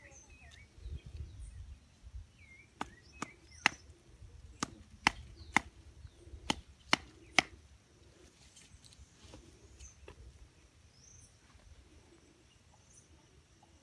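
Nine sharp clicks in three quick groups of three, about half a second apart within each group, with birds chirping faintly around them.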